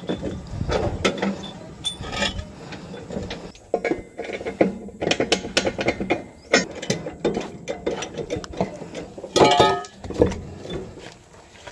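Irregular mechanical clicking and metal clinking from hand tools working on a tractor wheel, with a brief louder pitched sound about nine and a half seconds in.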